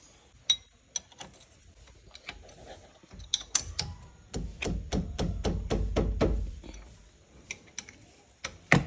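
Ratchet wrench clicking in an even run of about three clicks a second, with a low rumble under it, as the brake caliper is bolted back on. A few single metal clicks come before the run, and one sharp click comes near the end.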